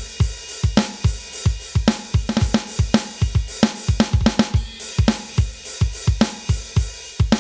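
Aroma TDX-25 electronic drum kit played through its sound module: a fast, steady beat of bass drum, snare and cymbals, with the bass drum briefly dropping out a little before four seconds in.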